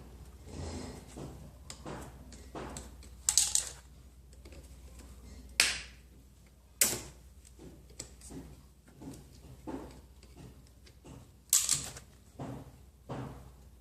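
Irregular sharp metallic clicks and clanks from tools and the old drive chain being worked off the motorcycle, four of them louder than the rest, over a faint low steady hum.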